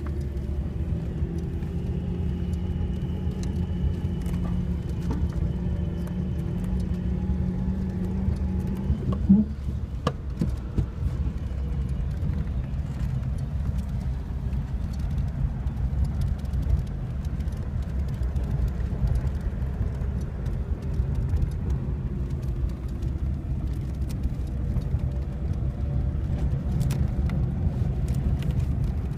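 1937 Rolls-Royce Phantom III's V12 engine and running gear heard from inside the cabin as the car drives off: a steady low rumble whose pitch climbs slowly for the first nine seconds, broken by a short knock, then a steady drone.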